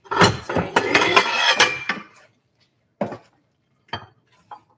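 Ceramic plates clattering and clinking as they are lifted down from a kitchen cabinet, over the scrape of a utensil tossing spaghetti in a sauté pan; the clatter lasts about two seconds, then a few single knocks follow.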